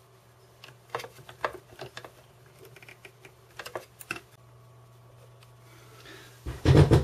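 Small metal clicks and taps from the levers and linkage of a vintage RCA 45 rpm record changer mechanism being worked by hand, scattered over the first four seconds above a faint steady hum. A loud rubbing thump follows near the end.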